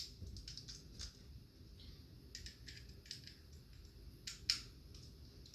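Faint, scattered clicks and taps from an Xbox 360 controller's plastic shell being handled, with a sharper click about four and a half seconds in.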